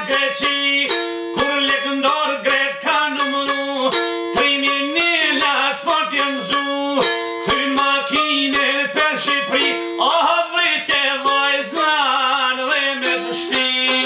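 Albanian folk song on a çifteli: fast plucked melody notes over a steady drone string, with a man singing along.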